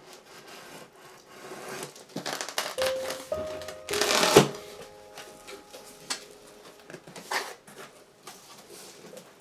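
Packaging being handled and rustled, with irregular noisy rustles and a louder burst about four seconds in, over soft piano background music.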